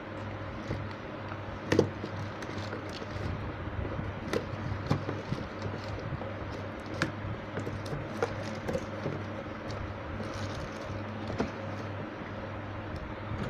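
Plastic mixer-grinder jars, lids and packing being handled, giving scattered light clicks and knocks, one sharper knock about two seconds in, over a steady low background hum.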